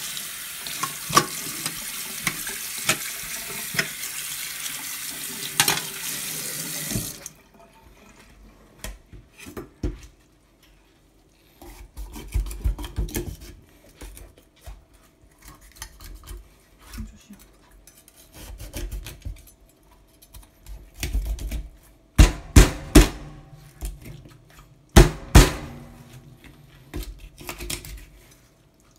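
Kitchen tap running onto raw fish pieces in a stainless steel sink as they are rinsed by hand, shut off abruptly about seven seconds in. Then a knife cutting a fish head on a wooden cutting board: scattered taps and knocks, with a handful of loud sharp chops near the end.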